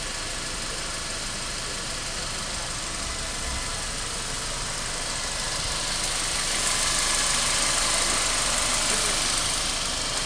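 Mercedes-Benz C200 Kompressor's supercharged four-cylinder engine idling with a steady, hissy running sound. It grows louder for a few seconds past the middle.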